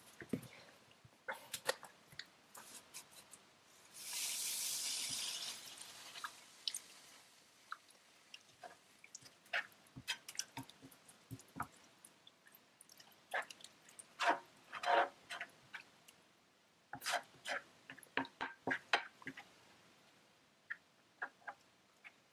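Milk poured into a hot frying pan of floured, sautéed vegetables, with a short hissing sizzle about four seconds in, then a spatula stirring, scraping and tapping in the thickening white sauce with small liquid squishes.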